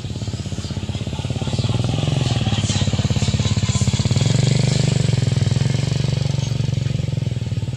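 A small petrol engine running with a rapid, even firing pulse, growing louder about two seconds in and easing off near the end.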